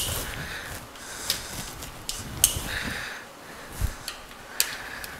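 Ratchet and socket clicking and clinking on the camshaft bearing-cap bolts of a Toyota 2JZ-GE cylinder head as they are loosened: a handful of sharp, irregular metal clicks, the loudest at the very start.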